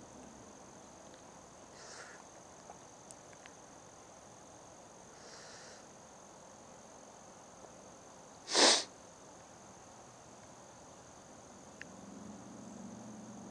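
Steady high-pitched chirring of crickets, with a few faint rustles and one short, loud rush of noise about two-thirds of the way through.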